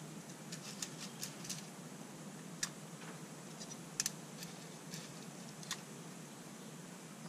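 Scattered small clicks and ticks from straight pins and a small pin box being handled while pins are picked from a coated seat; a close pair of sharp clicks about four seconds in is the loudest.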